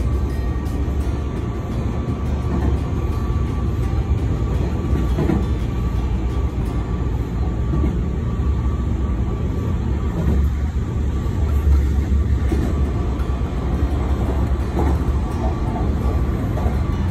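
Passenger train running along the track, heard from inside the carriage: a steady low rumble with a faint steady higher hum and a few light clicks from the rails.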